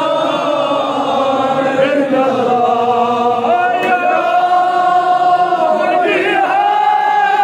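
Male voices chanting a Kashmiri marsiya, a mourning elegy for Karbala, in long held notes that waver and glide. A new, higher phrase begins about six seconds in.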